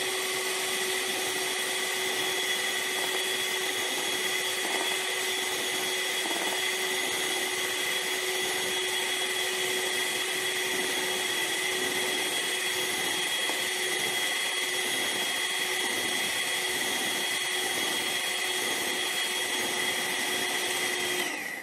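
Handheld electric beater running at a steady whine, whisking whipping powder and milk into cream. It is switched off near the end, and the whine drops away as the motor stops.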